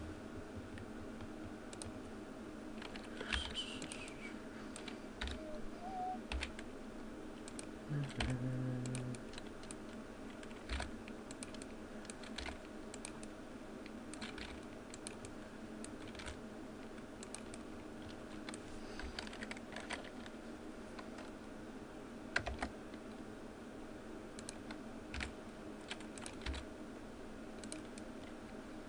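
Scattered computer keyboard key presses and mouse clicks at irregular intervals, over a steady low background hum.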